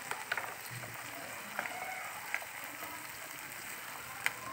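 Tomato-onion masala with peas sizzling in a nonstick frying pan: a low, steady hiss. A few light ticks of a stirring utensil against the pan, with a sharper tap near the end.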